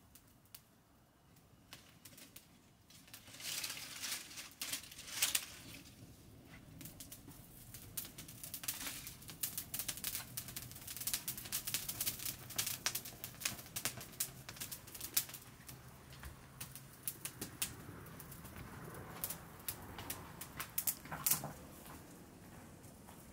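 A small fire of dry twigs and brush catching and crackling, with many quick sharp pops and a louder flare a few seconds in. Footsteps on stony ground near the end.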